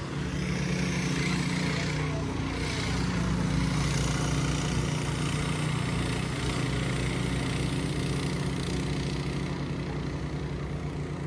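Small engine of an off-road vehicle running steadily, with a fast pulsing beat, a little louder in the first half and easing slightly near the end.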